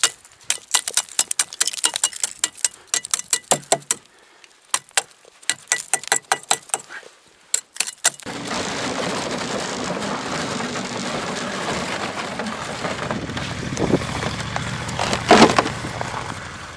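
Footsteps crunching on snow for about eight seconds, a series of sharp crunches. Then a steady rushing noise begins suddenly and runs on, with a louder scrape about a second before the end.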